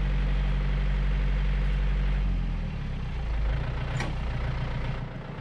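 John Deere 970 compact tractor's diesel engine running steadily, its low drone shifting to a different pitch about halfway through.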